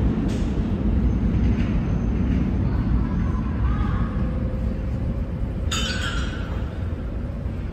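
Low rumble of a subway train in the underground station, slowly fading, with a short high-pitched hiss a little before six seconds in.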